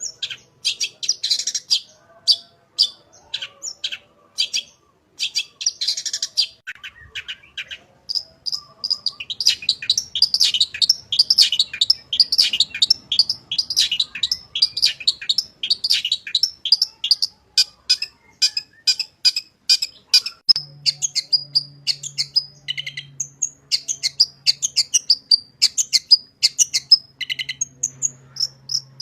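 Long-tailed shrike (cendet) singing a fast chattering song of sharp, high notes: broken phrases at first, then a dense, nearly unbroken run from about eight seconds in.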